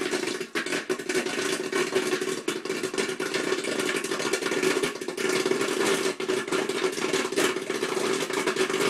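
Electric popcorn popper running, its motor humming steadily while kernels pop in scattered sharp clicks inside the dome.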